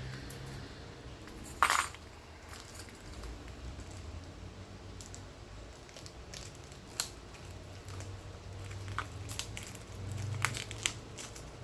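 Hands opening the packaging of a boxed earbook: scattered clicks and small knocks, the loudest a couple of seconds in and a cluster near the end, over a low steady hum.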